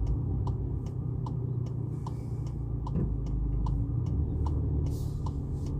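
Turn-signal indicator ticking steadily in a Polo GTI's cabin, a little over one tick a second, over the low steady rumble of the car's engine running.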